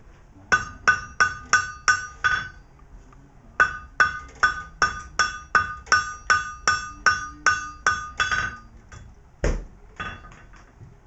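Blacksmith's hammer striking metal on an anvil, each blow ringing: a run of about six blows at roughly three a second, a short pause, then a longer run of about fifteen more, followed by one duller, heavier thump and a few light taps.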